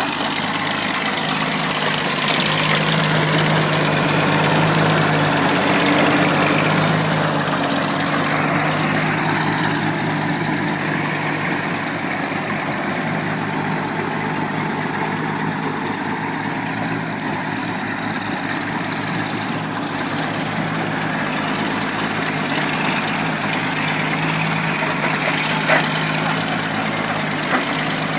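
Engine of a vintage Cletrac DDH crawler bulldozer running steadily at a low, even speed, a little louder over the first several seconds, with two short sharp knocks near the end.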